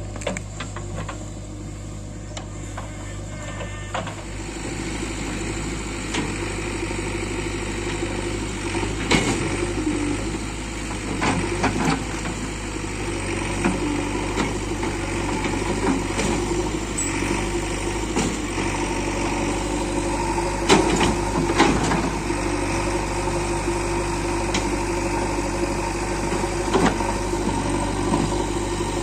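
JCB 3DX backhoe loader's diesel engine running steadily, with several sharp knocks scattered through it.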